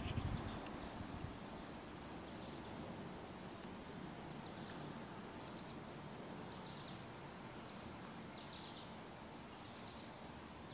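Faint outdoor background noise with short, high bird chirps recurring about once a second. A low rumble fades out over the first second or so.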